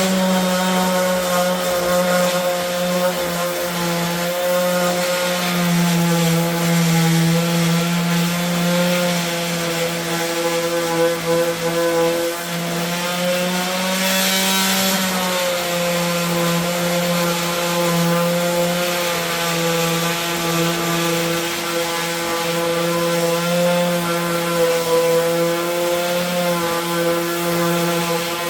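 Electric power sander running steadily as it sands the edges of the wooden nest box, a continuous motor hum over the rasp of abrasive on wood. Its pitch shifts slightly now and then.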